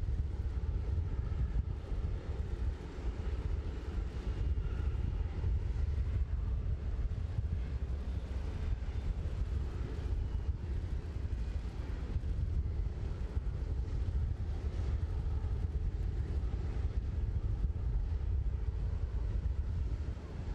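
Steady low rumble of jet aircraft noise on an airfield, with wind buffeting the microphone.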